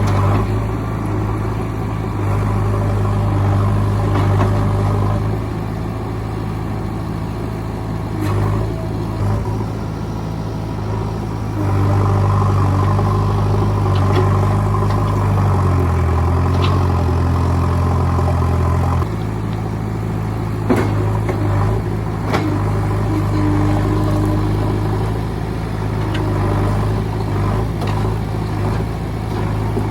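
JCB backhoe loader's diesel engine running steadily. About midway it works harder for several seconds, its note rising and heavier, before settling back. A few sharp clanks come in the second half.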